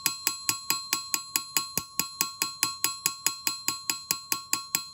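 Ball-peen end of a hammer striking a small brass sheet on a steel anvil in a rapid, even rhythm, about five blows a second, each blow followed by ringing from the anvil. The overlapping blows are texturing the metal with small dents.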